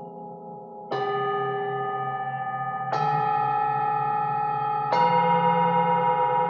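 Tubular metal chimes struck with a mallet three times, about two seconds apart. Each strike rings on with several steady tones, a slightly different set each time, layered over the ringing of the one before.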